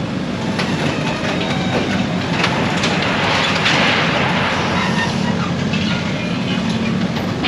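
A steady engine runs with scattered clatter and knocks, typical of demolition machinery and debris; a rush of noise like rubble scraping or falling swells about halfway through.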